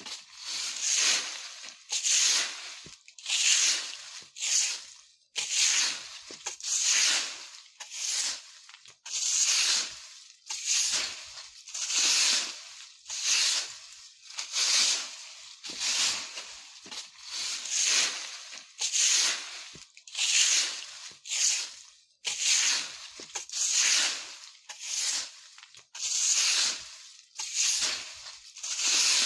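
Broom sweeping dry leaves on the ground: a steady run of rustling, scraping strokes, about one to two a second.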